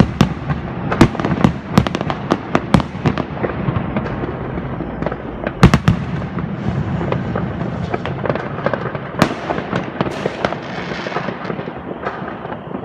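New Year's Eve fireworks: a constant crackle of many rockets and firecrackers bursting, near and far, over a rumble of distant bangs. A few loud close bangs stand out, the loudest about six seconds in.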